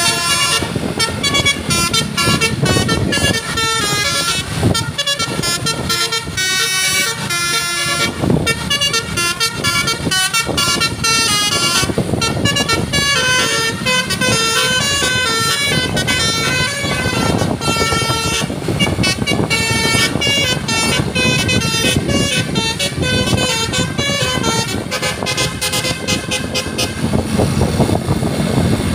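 A bus's Basuri 'telolet' multi-tone musical air horn playing a quick melody of stepped notes, settling into longer held notes near the end.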